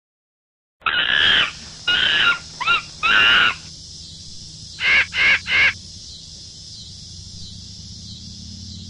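A series of animal calls: four calls in the first few seconds, then three quick calls about five seconds in, over a steady background hiss.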